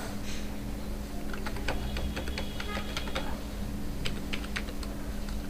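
Computer keyboard keys typed in a quick run for about two seconds, then a few more keystrokes after a short pause, as a password is entered. A steady low hum sits underneath.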